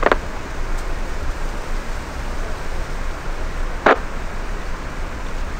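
Steady distant rushing of a Boeing 737's jet engines at low power as it lines up on the runway. Two short clicks, one at the start and one about four seconds in, come from an air-band radio as transmissions key on and off.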